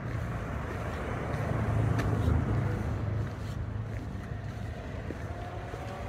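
A car passing on the road: engine and tyre noise swelling to its loudest about two seconds in, then fading.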